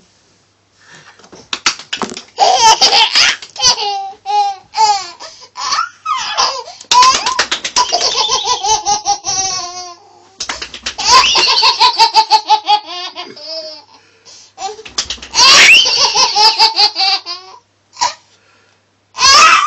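Baby laughing hard in long runs of belly laughs and squeals. Between the laughs an adult claps his hands, the sharp claps that set the baby off.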